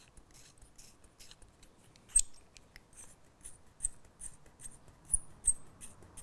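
Pin vise with a 2.2 mm twist drill turned by hand, cutting through a black plastic model-railway part: a faint, irregular run of short, scratchy clicks, a few a second, as the bit bites and shaves the plastic.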